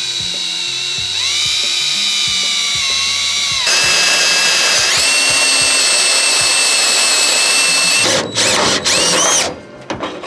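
Cordless drill running under load, first driving a small twist bit through the hood with a steady whine that climbs in pitch about a second in. It then changes to a louder, harsher whine with grinding as a hole saw cuts through the hood. Near the end the drill starts and stops in a few short bursts, each a brief rising whine, then stops.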